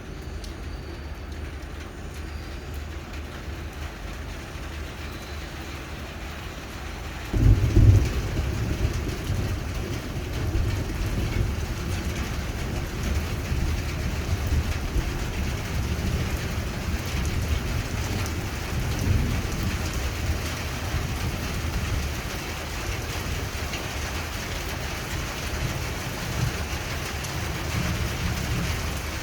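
Steady rain falling on a rooftop, an even hiss. About seven seconds in, a sudden deep rumble breaks in loudly and carries on more softly under the rain.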